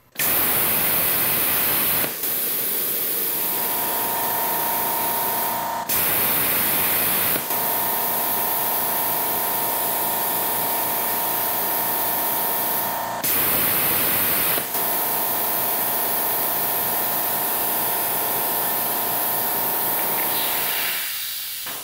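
Hypertherm Powermax 30 XP plasma cutter torch firing for a live voltage test: a loud, steady hiss of air rushing through the torch starts suddenly. A steady whining tone joins it about three seconds in, and both cut off suddenly at the end.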